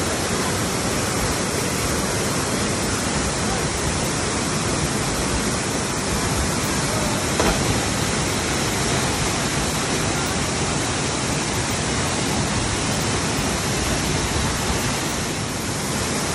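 A loud, steady rushing noise with no rhythm or tone, briefly louder about seven and a half seconds in.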